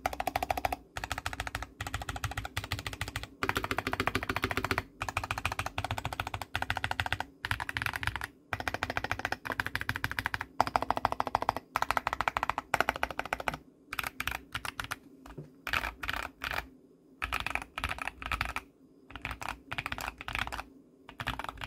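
Typing on an Ikki68 Aurora mechanical keyboard with Coffee Chip Ice Cream switches. Fast runs of keystrokes come in bursts with short pauses, and in the last several seconds the bursts become shorter and sparser.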